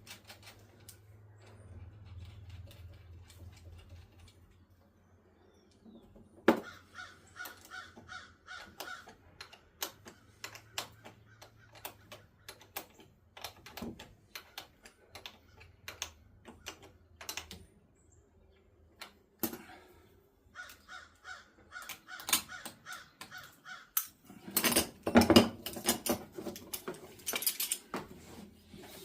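Runs of quick metallic clicks and clatter from hand tools, a wrench and ratchet working on the mower's starter solenoid and its wiring. The clatter grows louder and busier in the last few seconds, over a faint steady hum.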